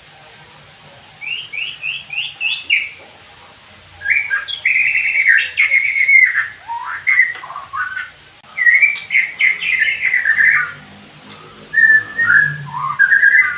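White-rumped shama singing: a quick run of about six short rising whistles, then three longer bursts of varied, swooping whistled phrases with brief pauses between them.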